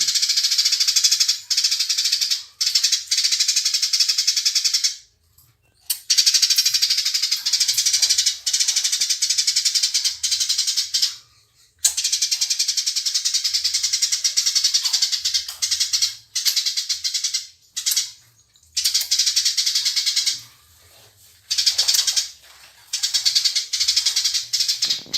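Eurasian tree sparrows chattering in a fast, dense stream of rapid chirps, the agitated calls of sparrows fighting. The stream breaks off briefly a few times, around 5, 11, 18 and 20 seconds in.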